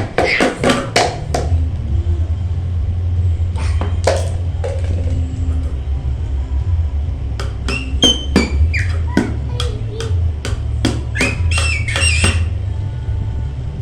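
Short high-pitched squeaks with wavering pitch over a steady low hum: a few at the start, two near the middle, then a quick run of them from about halfway to near the end.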